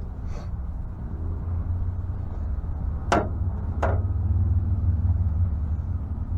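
Steady low rumble of an idling vehicle engine, with two short sharp sounds about three and four seconds in.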